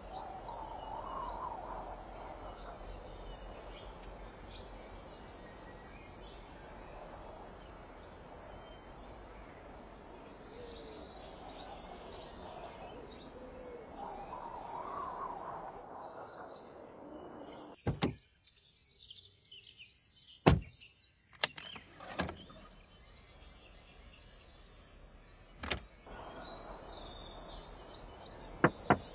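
Outdoor ambience, a steady hiss with bird calls. About two-thirds of the way in it drops away suddenly, and a handful of sharp, irregularly spaced clicks and knocks follow.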